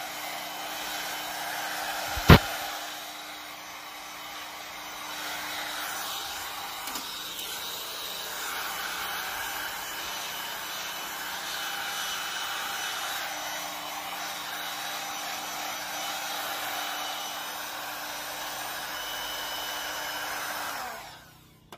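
Handheld electric air mattress pump blowing air steadily to clear dust out of a desktop PC case and its fans, then switching off near the end. A single sharp knock about two seconds in.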